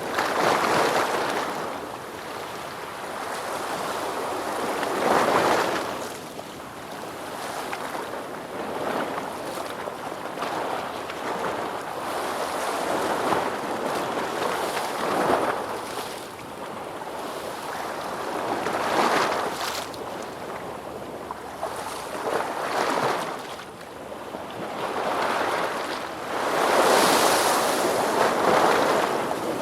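Ocean waves breaking and washing on a shore in a steady cycle, a surge of surf every few seconds rising and falling away.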